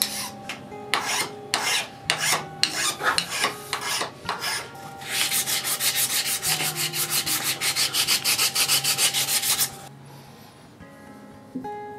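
A small hand file rasps in separate short strokes on the wooden handle of a Stanley No. 1 hand plane. About five seconds in it gives way to fast, even back-and-forth sanding with fine 400-grit sandpaper, about five strokes a second. The sanding stops near the end.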